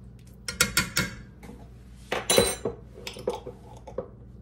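Metal spoon clinking and tapping against a glass garlic jar and a stainless steel soup pot while minced garlic is spooned in. There are a few quick clinks about half a second in, a louder ringing clink a little after two seconds, then lighter taps.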